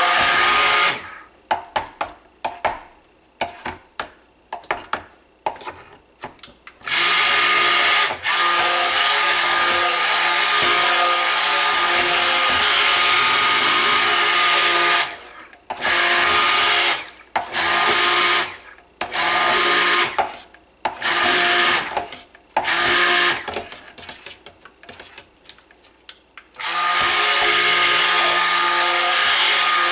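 Immersion (stick) blender running in thick soap batter, pulsed on and off in quick short spurts for several seconds, then run steadily for several seconds, then pulsed again and run steadily near the end. It is blending the lye and oils toward thick trace.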